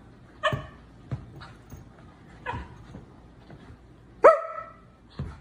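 A run of about five short barks, the loudest about four seconds in: a man barking at a mini cockapoo and the dog barking back at him.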